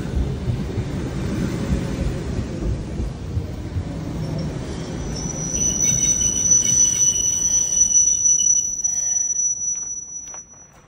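Electric suburban train running along the platform with a low rumble. A steady high-pitched squeal joins about halfway through, and both die away about a second before the end.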